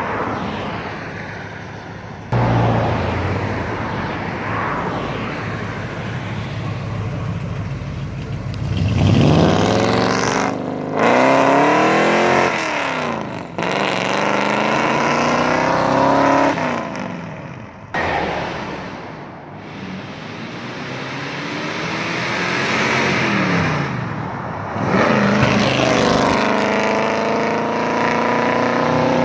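1965 Ford F100 pickup's engine running, then accelerating hard several times, its pitch climbing in each gear and dropping at each shift as the truck drives by.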